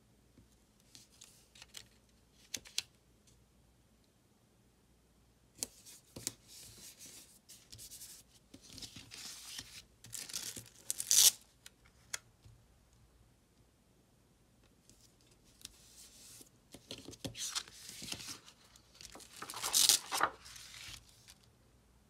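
Paper stickers being peeled off their backing sheet and handled, in two long stretches of tearing-like peeling and rustling, with a few small taps before them.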